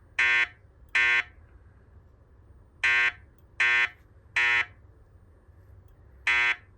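Wheelock E90 fire alarm speaker strobe sounding the temporal-three evacuation tone. Each flat-pitched beep lasts about a third of a second. The beeps come in threes, about three-quarters of a second apart, with a pause of about a second and a half between groups; the next group begins near the end.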